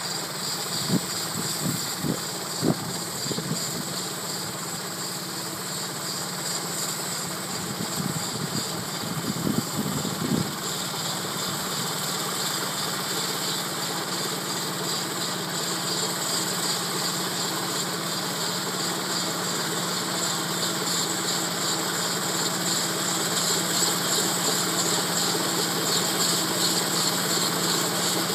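Diesel mini combine harvester running steadily as it cuts and threshes grain, growing louder as it comes closer. A few low thumps sound about a second in and again around eight to ten seconds.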